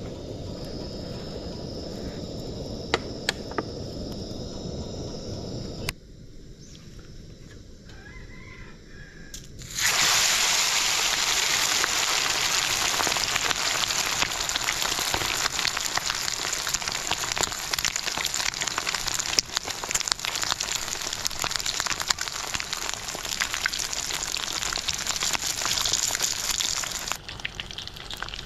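Chicken pieces deep-frying in hot oil in an aluminium kadai: a loud, dense sizzle with crackle that starts abruptly about ten seconds in and keeps on steadily. Before it, a low rumble under the heating oil.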